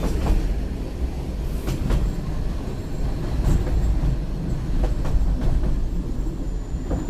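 Narrow-gauge passenger carriage running along the track, heard from inside its open-sided car: a steady low rumble with a few sharp clicks scattered through it.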